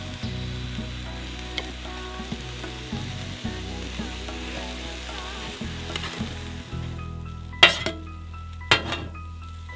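Kottu roti frying on a flat iron griddle: oil sizzling steadily as the shredded bread and vegetables are stirred and scraped with metal kottu blades. Two sharp clangs of a blade striking the iron plate come near the end.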